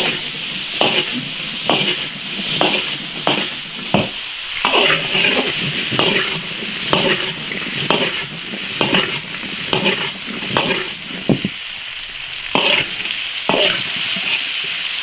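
Potato strips and cured pork stir-frying in a hot iron wok: a steady sizzle of oil under the metal ladle scraping and knocking against the wok about every half second, with a brief pause about three quarters of the way through.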